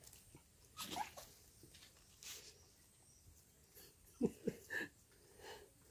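Newborn puppies whimpering faintly in a few short squeaky cries, with a cluster of sharper cries that drop in pitch about four seconds in.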